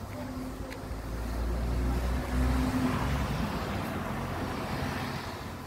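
LTZ-60AB tractor's diesel engine running steadily, growing louder to a peak about halfway through and then easing off.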